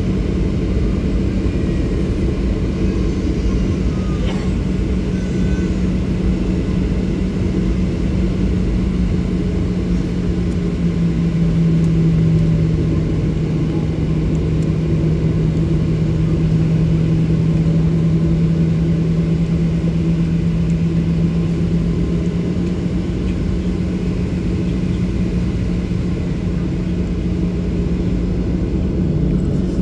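Boeing 737-800's CFM56-7B jet engines at taxi idle, heard inside the cabin as a steady low drone. A hum in the drone drops slightly in pitch for about ten seconds midway, then comes back up.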